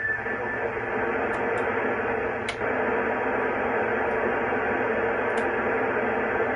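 Steady hiss of radio static from an amateur radio transceiver's speaker. The squelch is open on the ISS repeater frequency and no station is coming through. A few faint clicks sound about one and a half, two and a half and five and a half seconds in.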